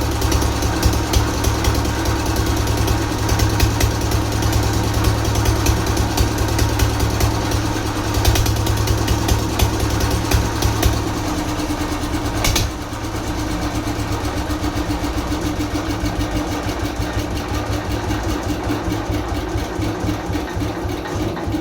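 Old diesel engine running steadily after repair, with an even knocking beat and a deep rumble. About twelve seconds in there is a single sharp knock, after which the deep rumble is weaker while the engine keeps running.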